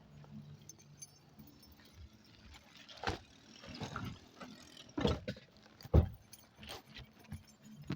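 Scattered clicks and clatters of things being handled, over a low steady hum, with one dull thump about six seconds in that is the loudest sound.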